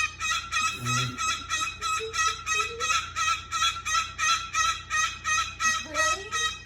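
Cockatoo repeating a shrill, pitched squawk over and over in a steady rhythm, about three or four calls a second.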